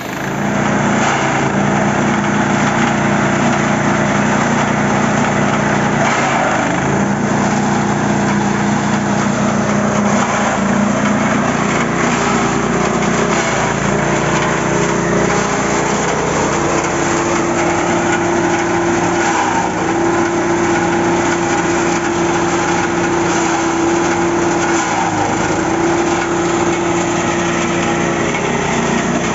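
Engine-driven forage chopper running under load, shredding leafy branches into green fodder. The engine's note dips briefly a few times as branches are fed in.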